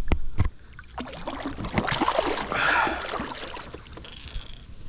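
Water splashing and a few knocks against a kayak as a hooked flathead catfish is landed, with the splashing loudest in the middle and fading near the end.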